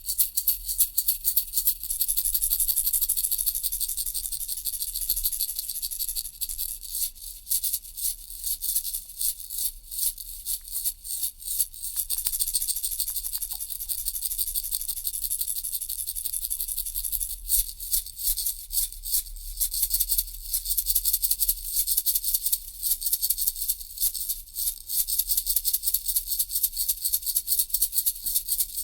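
Toy baby rattle shaken steadily, its beads making a bright, high rattle. The shaking alternates between stretches of continuous rattling and separate quick shakes.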